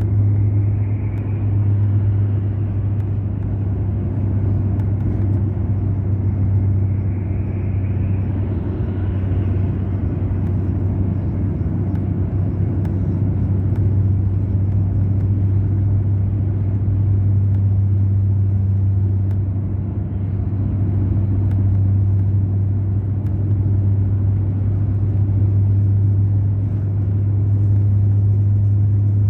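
Mercedes-Benz O500 RSD coach's BlueTec5 diesel engine running steadily under way, a loud, even, deep drone.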